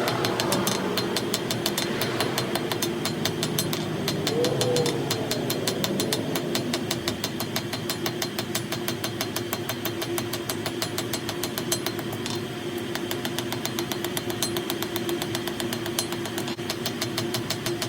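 A machine running steadily with a fast, even knocking over a constant hum.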